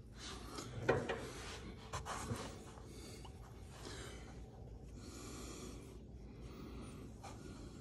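Engine oil draining in a thin stream from the drain-plug hole of a Honda Gold Wing GL1800 into a drain pan, a faint steady pouring, with a few light clicks in the first couple of seconds.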